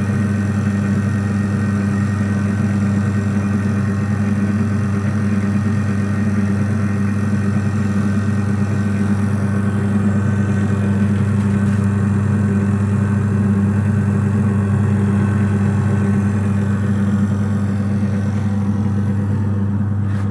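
Electric motor of a chicken cutting machine running steadily, giving a loud, even hum with no cutting strokes.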